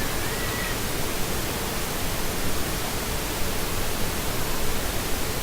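Steady hiss, with a faint steady hum underneath and a faint wavering whistle in the first second.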